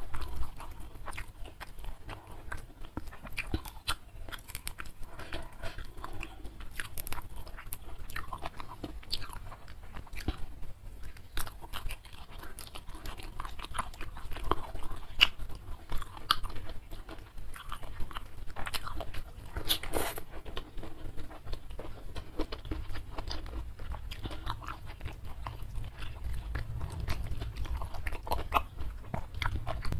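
Close-miked chewing and crunching of crispy fried catfish and rice eaten by hand, a steady run of irregular crunches and mouth clicks, with one sharper crunch about two-thirds of the way through.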